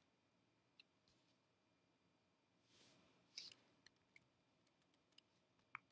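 Near silence, broken by a handful of faint computer mouse clicks in the second half and a soft, brief hiss a little before the middle.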